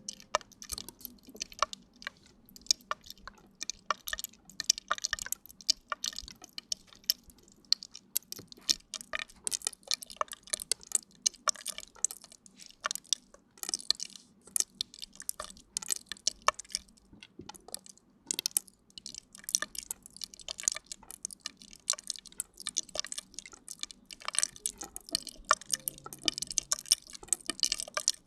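Close-miked ASMR wet trigger sounds: dense, irregular crackling and squishing, many small crisp clicks every second.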